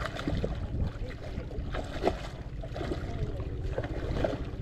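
Water splashing and sloshing at the foot of a rock wall as a hooked shark is grabbed by hand in the shallows, with a few short splashes over a steady low rumble.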